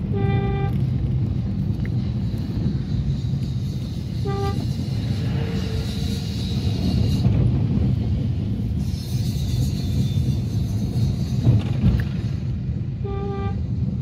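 Car driving on a road, heard from inside the cabin as a steady low rumble, with three short horn toots: one at the start, one about four seconds in, and one near the end.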